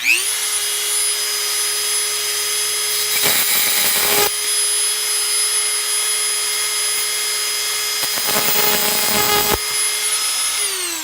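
Dremel rotary tool switched on and running at a steady high whine while cutting the old wheels off a die-cast toy truck. A rough grinding rasp comes in twice, about three seconds in and again around eight seconds in, where the bit bites into the axle. Near the end the tool is switched off and its pitch starts to fall as it spins down.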